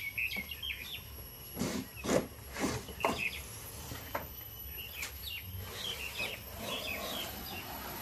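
Small birds chirping, with a handful of loud scrapes and rustles of a cardboard refrigerator carton being handled and lifted off, clustered about two to three seconds in, and softer rustling later.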